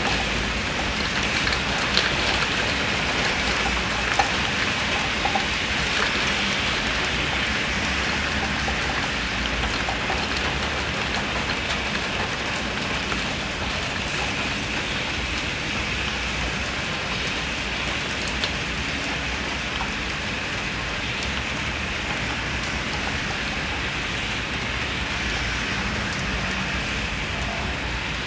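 Heavy rain falling steadily, with a low rumble of strong wind beneath it and a few sharper drops in the first few seconds.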